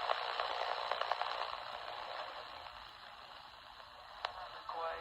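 Static hiss from the small speaker of a Coby CX50 AM/FM pocket radio being tuned on the AM band, with crackles over the first second or two, fading lower, then a sharp click about four seconds in. Near the end a station starts to come in through the hiss.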